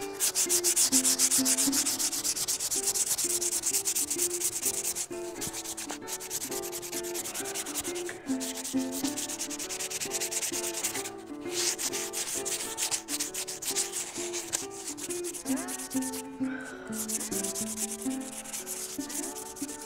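Hand sanding of a small carved stone oloid with folded 120-grit sandpaper: rapid back-and-forth scratching strokes that break off briefly a few times. This grit is removing the deeper scratches left by 80 grit.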